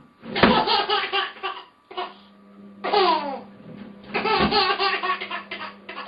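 Laughter in three bursts, choppy and high-pitched, the loudest at the start and about four seconds in.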